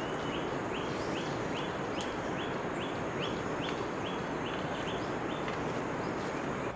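A bird calling a quick series of short rising notes, about two and a half a second, which stops a little over five seconds in, over a steady rushing background and a faint high steady whine.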